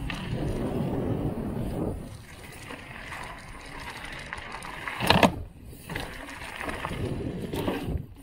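Wind buffeting the mountain bike's camera microphone and tyre noise as the bike rolls along a path and onto a dirt trail, louder for the first two seconds. About five seconds in comes one sharp knock, the loudest sound, from the bike.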